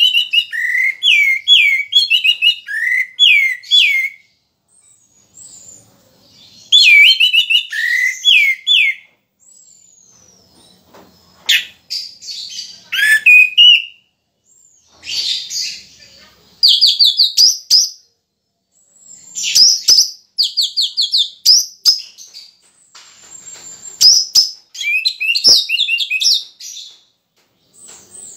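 Orange-headed thrush singing loudly in phrases of quick, repeated down-slurred whistled notes, each phrase a few seconds long with short pauses between, about half a dozen phrases in all.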